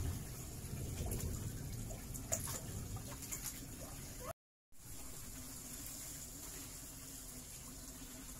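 Children splashing in a small pond while a hose pours water into it, with a few sharper splashes in the first half. The sound cuts out briefly a little past halfway, then steadier running water continues.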